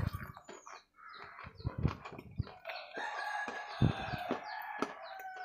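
Close-mic chewing and biting of a red bar: a string of soft, bassy mouth thumps and crunches. In the second half a steadier, higher-pitched sound runs under the chewing.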